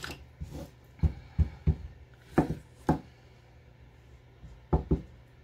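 A handful of light knocks and taps on a craft table as a black ink pad is handled and a clear stamp on an acrylic block is inked, with a quick double tap near the end.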